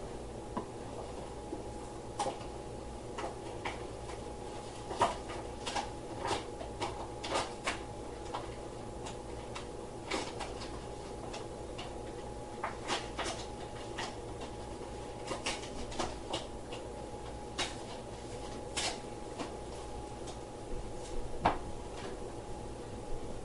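Scattered clicks and knocks of hard objects being handled at irregular intervals, over a steady electrical-sounding hum.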